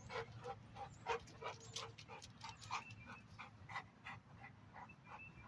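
Dog panting rapidly and steadily, about four to five breaths a second.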